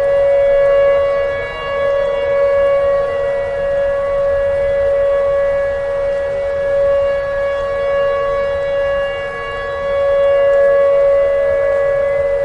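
Outdoor tornado warning siren sounding a steady wail: one sustained high tone whose loudness swells and fades every few seconds.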